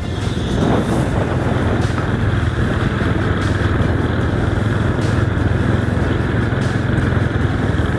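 Honda motorcycle engine running steadily as it is ridden, with a constant low hum under steady rushing wind and road noise.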